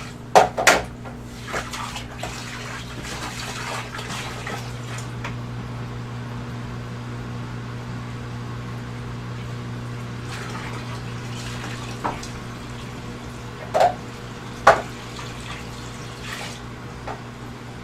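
Water running and splashing through an aquarium overflow into the sump, with a steady low hum underneath. A few short knocks stand out, two right at the start and two about fourteen seconds in.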